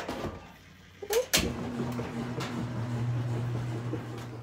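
Kitchen microwave oven started: a door click and a sharp clunk about a second in, then a steady low electrical hum as it runs.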